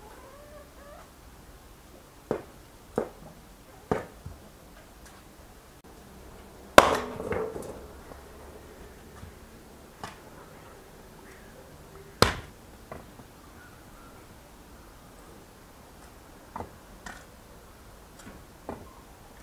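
Firewood being split with a hatchet: sharp chopping blows at irregular intervals. A run of three comes about a second apart, the loudest blow about seven seconds in is followed by a short clatter of wood, another strong blow follows around twelve seconds, and then come a few lighter knocks.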